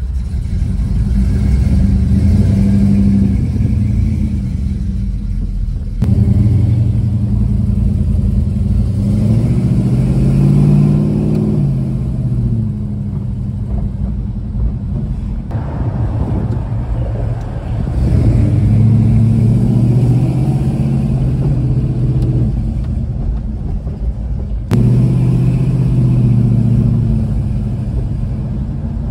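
1970 Dodge Charger's engine heard from inside the cabin, running with a low steady note as the car drives; about ten seconds in it revs up and falls back. The sound changes abruptly three times where the footage is cut.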